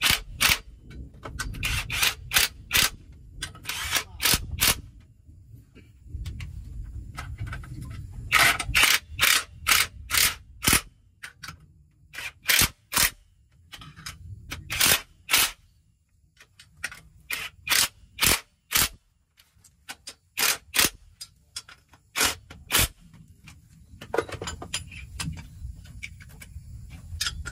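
Metal tools striking metal: sharp knocks in quick runs of three to six, with short pauses between, over a low rumble.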